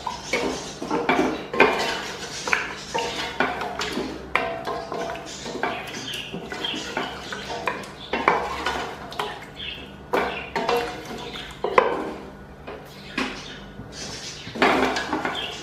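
A wooden spatula scraping and knocking against a stainless-steel pot, with irregular clicks and scrapes, as mutton pieces are stirred through a thick yogurt masala.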